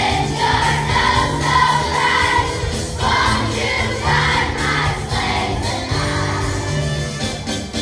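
Elementary school children's choir singing together over instrumental accompaniment with sustained low notes.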